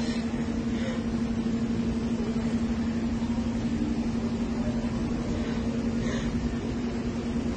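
Steady mechanical hum: one constant low tone over an even noise, unchanging throughout, with a couple of faint short sounds about a second in and near the end.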